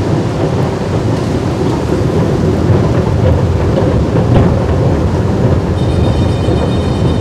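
A moving escalator running with a steady low rumble. A thin, high steady whine joins near the end.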